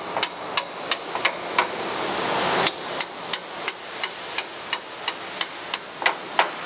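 A light hammer tapping metal pins upward out of a bandsaw's table pin bar: quick, sharp metallic taps, about three a second. There is a pause of about a second near two seconds in, as the hammer moves from one pin to the next.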